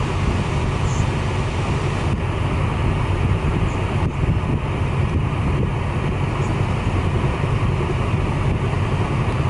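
Helicopter running steadily overhead, a loud, continuous low throb from its rotor and engine.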